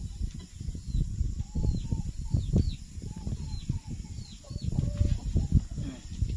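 Wind buffeting the microphone in irregular low gusts, with birds calling in the background in short, downward-sweeping chirps.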